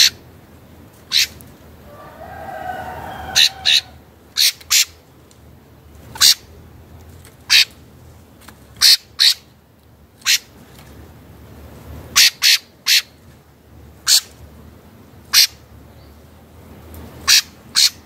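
Rufous-bellied thrush giving short, sharp call notes, about twenty of them, irregularly spaced and often in quick pairs. A brief wavering lower call sounds about two seconds in.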